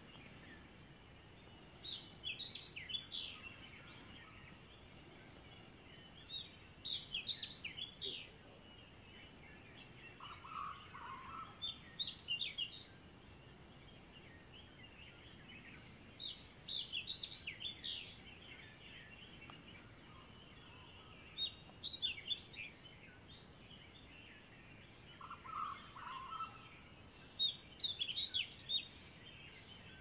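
Dawn birdsong: a short, high phrase of several quick notes repeats about every five seconds over a faint steady background chorus. A lower, brief call comes twice in between.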